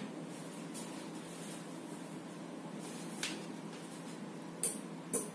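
A few faint clicks and taps of tools being handled on a workbench, the loudest about four and a half seconds in, over a steady background hiss.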